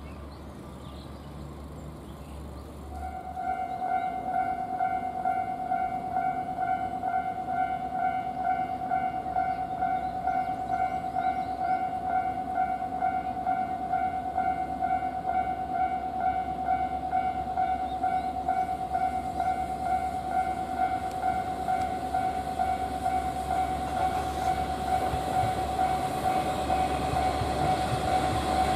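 Railway level-crossing warning bell starts about three seconds in and rings in a rapid, even rhythm. Near the end a Kiha 40-series diesel railcar's engine and wheels grow louder as it approaches.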